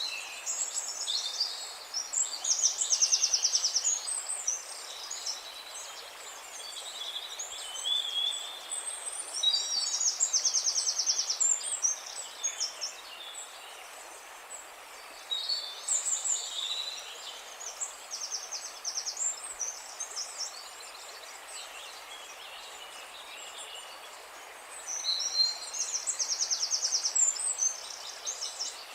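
Songbird singing: high-pitched song phrases about three seconds long, each with a fast trill, repeated four times over a steady background hiss.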